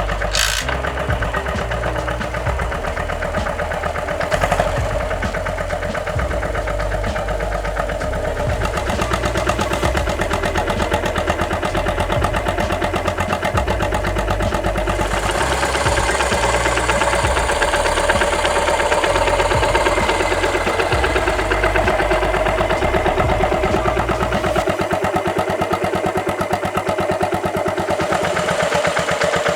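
Yamaha SR400's single-cylinder four-stroke engine idling steadily, with even firing pulses.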